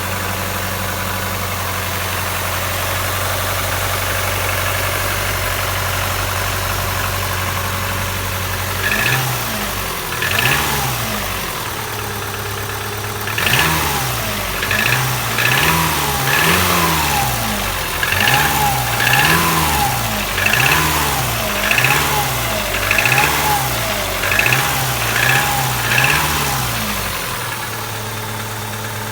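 Subaru boxer engine idling, then revved in about a dozen quick throttle blips, each rising and falling in pitch, before settling back to idle near the end. The engine has the knock that the owner complains of.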